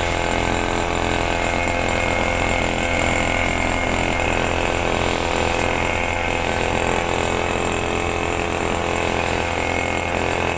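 Gasoline grass cutter (brush cutter) engine running steadily as it cuts tall grass, then cutting off suddenly at the very end.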